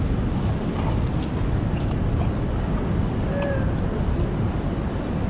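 Steady low rumble of wind buffeting the microphone, with one brief squeak about three and a half seconds in.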